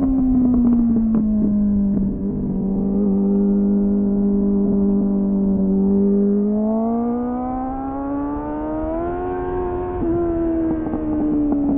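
Onboard sound of a 2001 Suzuki GSF600 Bandit's 600 cc inline-four through an aftermarket slip-on exhaust with a home-made dB killer. Engine speed drops and holds steady for a few seconds, climbs under throttle from about six and a half seconds in to a peak near nine and a half seconds, then eases off. Wind rumbles on the microphone underneath.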